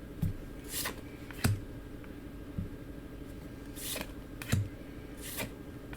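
Weiss Schwarz trading cards being handled and slid against one another: short soft swishes and light taps, roughly one a second, with a faint steady hum underneath.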